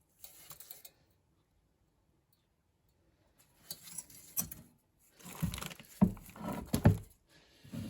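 Sandblasted metal mower parts being handled and shifted about, giving a series of separate knocks, clinks and scrapes that start about three and a half seconds in.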